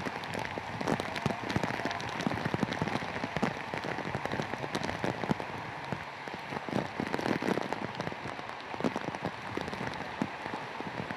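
Heavy tropical-storm rain, a dense crackle of drops, over rushing floodwater with splashes from people wading through the current.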